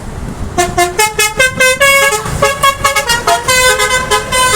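A bus's Basuri 'telolet' multi-tone horn plays a fast tune of short notes that change pitch several times a second. It starts about half a second in, over road traffic noise.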